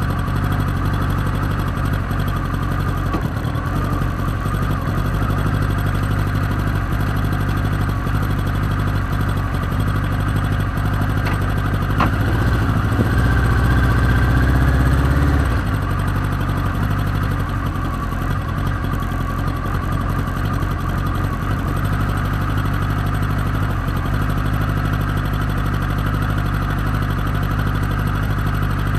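Radical SR3 race car's engine idling steadily, heard from the open cockpit. The engine note swells from about twelve to fifteen seconds in, then settles back, and the sound cuts off suddenly at the very end.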